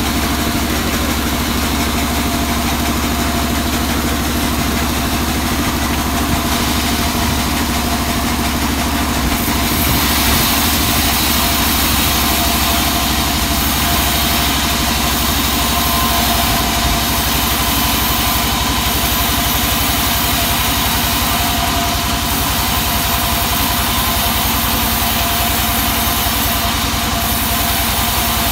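Vertical band sawmill running steadily while its blade cuts through a thick, hard teak beam. The sound brightens into a louder, hissier cutting noise about ten seconds in and holds there.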